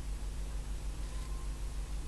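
Room tone: a steady low hum with faint hiss.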